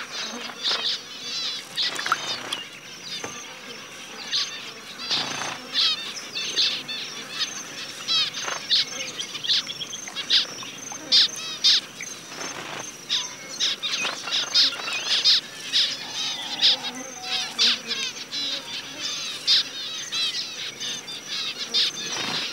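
A flock of zebra finches calling, a dense, many-voiced peeping of short calls, with now and then a brief flutter of wings.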